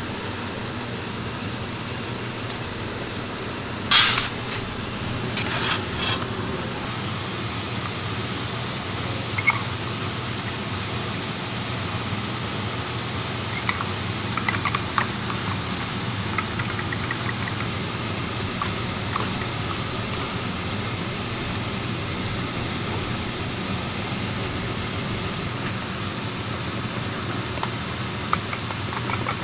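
Steady background hum and hiss, with light clicks and scrapes of a wooden chopstick stirring sugar in a small metal dalgona ladle over a portable burner. A sharp clatter comes about four seconds in and another near six seconds.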